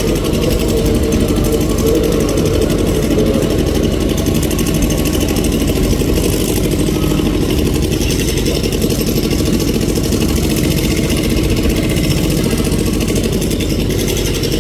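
JR 205 series electric commuter train running slowly over the tracks and points: a steady, loud mechanical rumble with a fast, even rattle.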